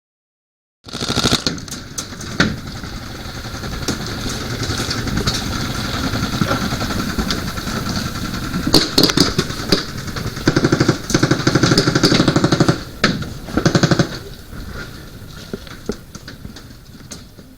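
Airsoft guns firing in rapid automatic bursts, starting abruptly about a second in. The loudest bursts come in clusters around the middle, and the firing fades near the end.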